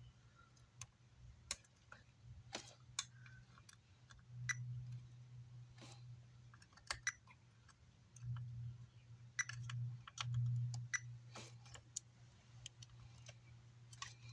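Scattered light clicks and taps of an amplifier circuit board and tools being handled on a workbench, over a low hum that swells louder a few times.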